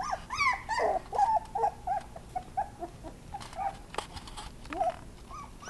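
Miniature Pinscher puppy whimpering: a quick string of short, high whines, several a second, thinning out after about three seconds. A sharp click comes about four seconds in.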